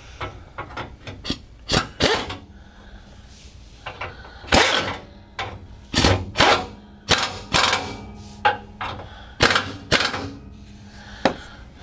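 Hand wrench working the bolts of a driveshaft's center support bearing bracket: a string of sharp, irregular metallic clicks and knocks, coming thickest in the middle stretch.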